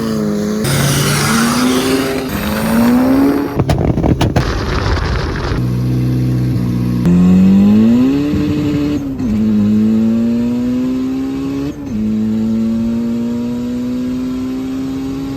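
Engines revving up and settling back in a string of short clips cut together, so the sound changes abruptly several times. There is a burst of sharp clicks about four seconds in.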